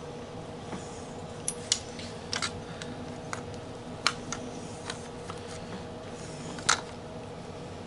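A metal hand tool clicking and scraping against a throttle body being prised apart, with a scattered series of sharp metallic ticks. The loudest tick comes near the end.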